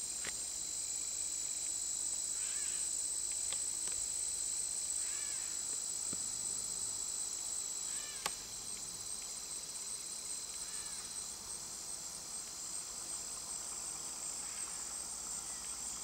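Steady, high-pitched insect chorus trilling without a break, with faint short chirps every two or three seconds and a few sharp clicks.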